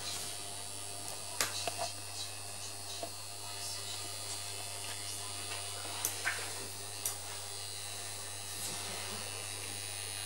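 Homemade punched card reader's electrics giving a steady mains hum and buzz, with a few sharp clicks scattered through, mostly around one and a half seconds and six to seven seconds in.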